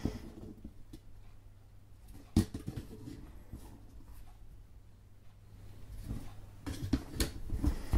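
Thin laser-cut wooden sheets being lifted and handled: light clacking of the sheets against each other, with one sharp knock about two seconds in and a run of small clicks near the end.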